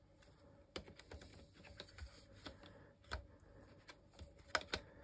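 Faint clicks and light knocks from a Canon EOS 2000D body and its 18-55mm kit lens being handled and fitted together at the lens mount, with a few sharper clicks in the last two seconds.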